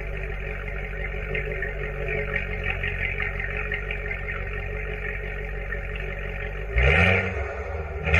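Supercharged Corvette C7 V8 idling steadily, heard from the exhaust tips, then a sharp throttle blip about seven seconds in, its pitch sweeping up as the exhaust gets much louder, with a second blip starting at the very end.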